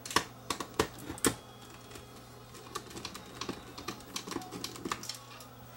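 Small clicks and taps of a screwdriver tip and plastic parts on a cassette deck mechanism being handled: three sharper clicks in the first second and a half, then a run of lighter, quicker ticks.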